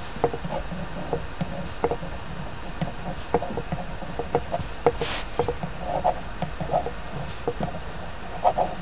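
Ballpoint pen writing on graph paper: quick, irregular scratches and ticks of the tip as the letters are drawn, with a short hiss about five seconds in.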